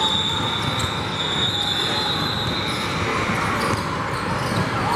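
Basketball being dribbled on a hardwood gym floor during a game, with spectators' chatter echoing through the large hall.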